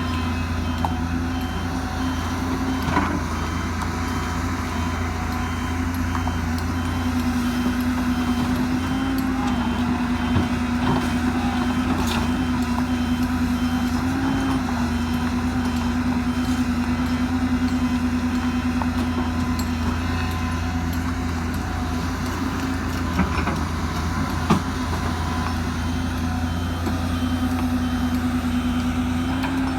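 Excavator's diesel engine running steadily under load, with a few brief sharp knocks.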